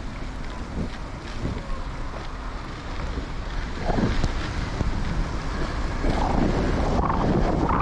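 Wind buffeting the microphone of a moving bicycle, with a steady rumble and hiss from riding along a wet, plowed path. The gusts grow louder about halfway through.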